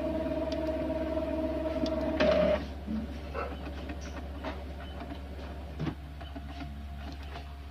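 Epson L3250 EcoTank printer's mechanism running through its initial setup cycle: a steady whirring tone over a low hum. The whirring steps down in level about two and a half seconds in, followed by scattered light clicks.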